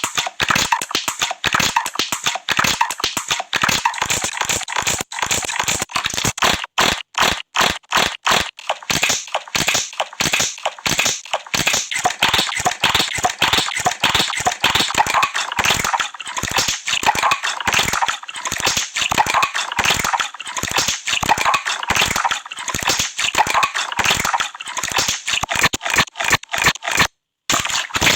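Rapid, irregular crackling and popping of many small bubbles bursting, dense and close, with a brief break near the end.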